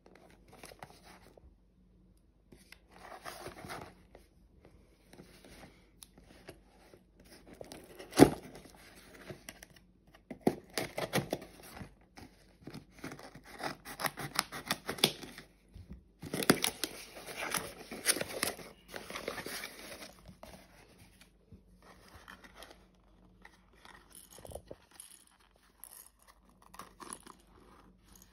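Packing tape and a cardboard parcel being slit with a small blade and torn open by hand: bursts of cutting, tape tearing and cardboard scraping and rustling, with one sharp click about eight seconds in. The handling gets quieter near the end.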